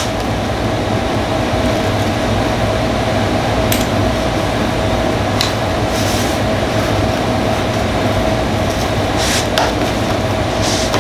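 Steady machine hum with a constant thin whine, loud and even, like a fan or air-conditioning unit running. Over it come a handful of light clicks and rustles as small hand tools and bits are packed into a tool pouch.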